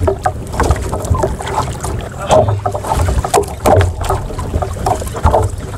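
Wind buffeting the microphone and choppy water slapping against a small outrigger boat's hull, in uneven low rumbling gusts with scattered sharp knocks and clicks.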